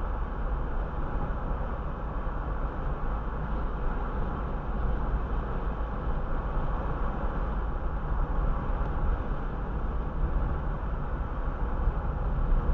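Steady road noise inside a car cruising at about 30 mph: tyre rumble and engine drone, heaviest in the deep low end, with no distinct events.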